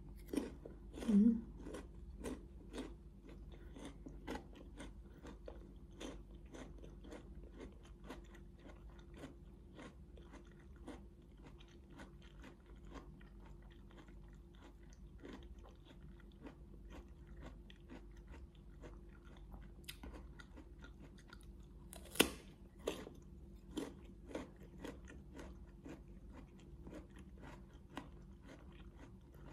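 Close-miked chewing of a crisp green guava: a steady run of crunchy, wet chewing clicks, with a sharper crunch about 22 seconds in.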